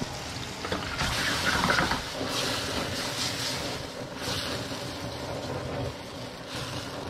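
Garlic and San Marzano tomato sauce cooking in a pan: a steady sizzling hiss that swells and fades a little.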